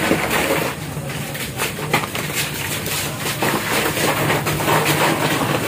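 Rustling and irregular knocks of sacks of rice being lifted and handled, over a steady low hum.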